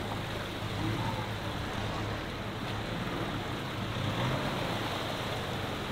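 A four-wheel-drive ute's engine running steadily under load as it drives out of a muddy bog hole, its tyres churning through water and mud.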